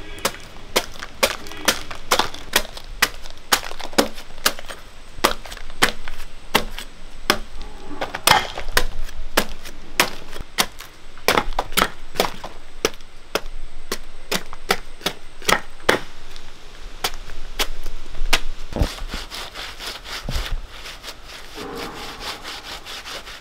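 Large knife slicing the spiky rind off a raw jackfruit: repeated sharp cutting strokes, about two a second, fewer in the last few seconds.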